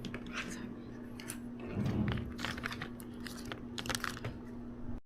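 Scattered small clicks and crinkling, like objects being handled, over a steady low hum, with a louder dull thump about two seconds in.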